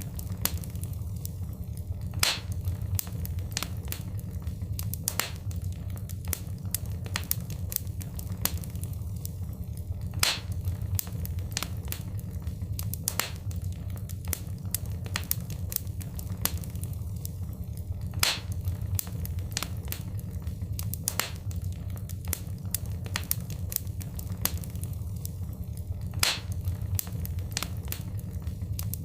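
Wood fire crackling in a fireplace: frequent sharp pops and snaps over a steady low rumble of the flames, with a louder pop about every eight seconds.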